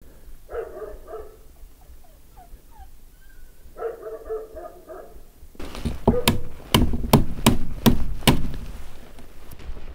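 Two short animal calls, each a quick run of pitched notes, a few seconds apart. About halfway through comes a run of about eight loud, sharp knocks over two and a half seconds.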